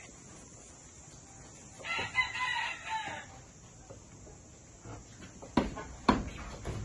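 A rooster crows once, a wavering call of about a second and a half. Near the end come two sharp knocks on wood.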